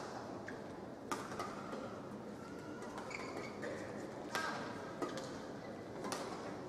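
Badminton rally: a few sharp racket strikes on the shuttlecock, a second or more apart, with short squeaks of court shoes on the floor and a steady arena background underneath.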